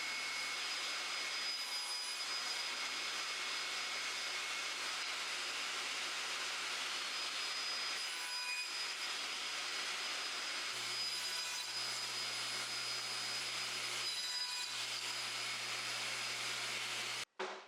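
Table saw running: a steady whir and hiss with a low hum, which cuts off suddenly near the end.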